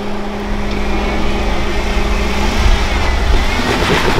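Jeep Wrangler Rubicon JKU engine working under load as it crawls up a rock ledge. The low rumble grows louder about halfway through as the front wheel climbs.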